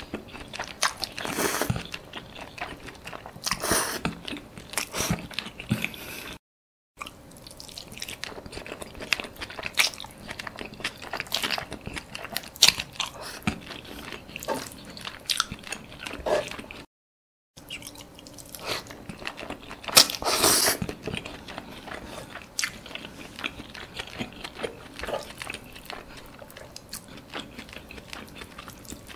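Close-miked chewing of thick mee tonggek noodles and squid eaten by hand, with many irregular mouth clicks and bursts. The sound drops out completely twice for a moment.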